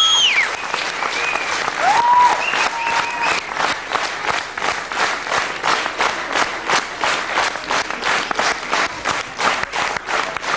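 Audience applauding, with a whistle at the start and another about two seconds in. From about four seconds in the applause turns into rhythmic clapping in unison, about four to five claps a second.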